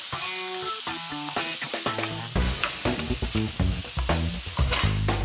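Diced onion and garlic sizzling in coconut oil in a stainless steel frying pan as they are stirred with a wooden spoon to brown. Background music plays over it, with a bass line coming in about two seconds in.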